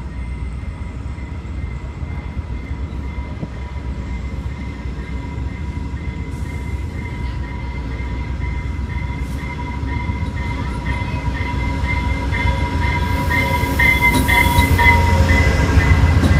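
VIA Rail passenger train, a Genesis diesel locomotive hauling LRC coaches, pulling into the station; its rumble grows steadily louder as it nears, with a steady high-pitched squeal over it.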